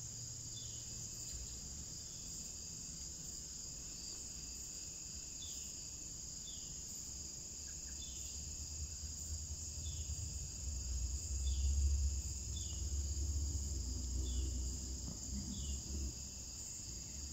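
Steady high-pitched insect chorus, with a short falling chirp repeating every second or so. A low rumble swells through the second half and is loudest about twelve seconds in.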